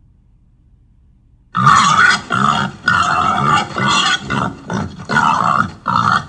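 A pig squealing and screaming in a loud run of short, repeated cries, starting about a second and a half in.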